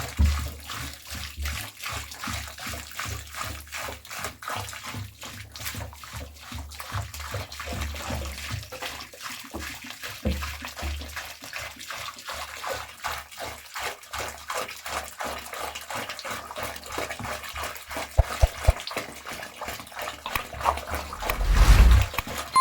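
Water splashing and sloshing with many irregular wet slaps and clicks, as water is worked into soil. The noise swells louder near the end.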